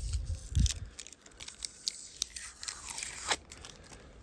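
Crunching and scraping as a smartphone's old battery is worked loose from its adhesive, with scattered sharp clicks and a short falling squeak near the end.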